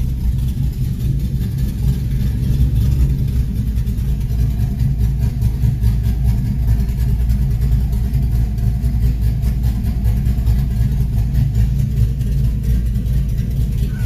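LS1 V8 with an SNS Stage 3 big camshaft idling at about 1000 rpm, heard from inside the car: a steady low rumble with an uneven, pulsing beat.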